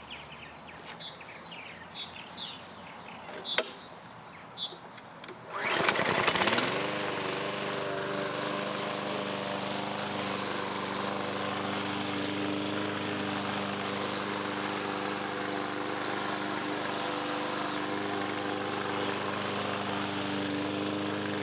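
Walk-behind lawn mower's small four-stroke engine being started about five seconds in: it catches and rises in pitch to speed, then runs steadily while mowing grass. A few bird chirps are heard before it starts.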